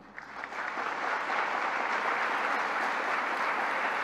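Large audience applauding, building up over the first second into steady applause.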